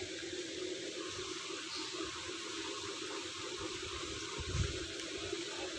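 Steady rush of running water with a constant low hum under it, and a soft low bump about four and a half seconds in.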